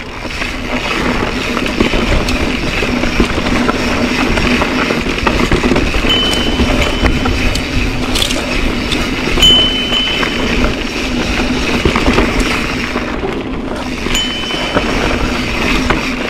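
Mountain bike rolling along a dirt singletrack, filmed from a camera on the rider: steady wind and tyre noise with small rattles and clicks from the bike. A few brief high tones come in about six, nine and fourteen seconds in.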